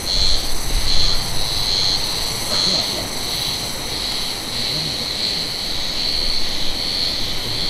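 Steady high-pitched buzzing of cicadas in the pine trees, with a slow regular pulse, over a faint low rumble.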